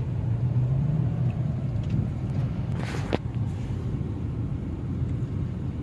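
Steady low drone of a hybrid car heard from inside the cabin while driving, with a short sharp knock about three seconds in. The petrol engine is running with a light misfire on cylinder 2.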